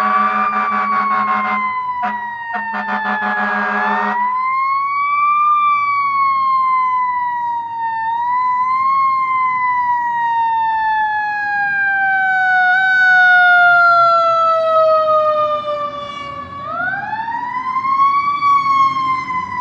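Fire truck siren wailing: it climbs quickly in pitch, then slides slowly down over several seconds, climbing again three times. In the first four seconds, two long horn blasts, separated by a short gap, sound over the siren.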